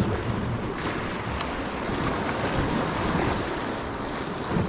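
Steady rush of wind on the microphone, with sea waves washing against the shore.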